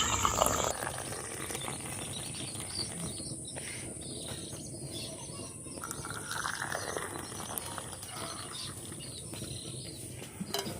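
Light clinks and scrapes of metal cooking vessels as the boiled dry-ginger coffee is taken off the stove and strained, over a steady high insect trill.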